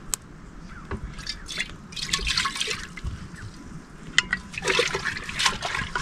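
Water trickling and splashing in uneven bursts, with a few sharp clicks.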